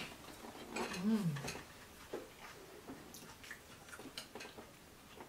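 Quiet eating sounds: a fork lightly tapping and scraping a plate, with small clicks of chewing. About a second in there is a short hummed "mmm" that rises and falls in pitch.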